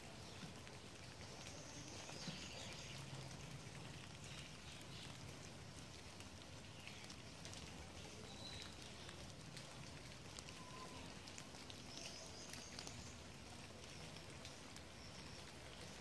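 Faint outdoor ambience: a steady soft hiss with scattered small ticks and a few faint high chirps.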